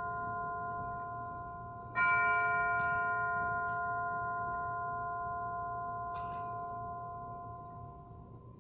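A bell struck about two seconds in, its clear tones ringing on and slowly dying away; the ring of an earlier strike is fading before it.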